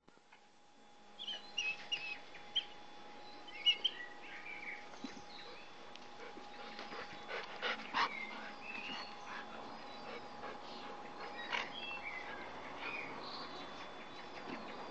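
Bernese mountain dog puppy and adult dog play-fighting, with many short, high-pitched yips and whimpers, loudest in the first few seconds.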